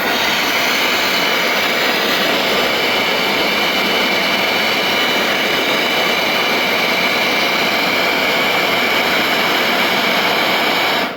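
A power tool running steadily and loudly while it clears built-up mortar out of a brick beam pocket. It starts and stops abruptly.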